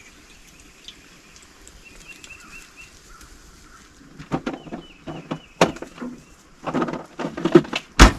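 A bird calls in the background in quick runs of short, repeated chirps. From about four seconds in, close knocks and clattering take over, ending in one sharp knock.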